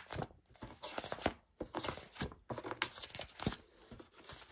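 Pages of a thick wallpaper sample book being flipped by hand: a run of irregular crisp paper rustles and flaps.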